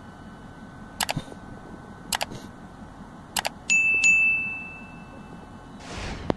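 Subscribe-button animation sound effects: three pairs of quick mouse clicks about a second apart, then a bell ding that rings on and fades over a second or two, and a whoosh with a final click near the end, over a faint steady background rumble.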